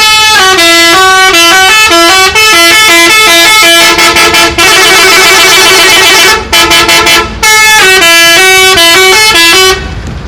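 Telolet bus horn, a multi-tone musical horn, playing a fast melody of short stepping notes with brief breaks. For about two seconds midway several tones sound together.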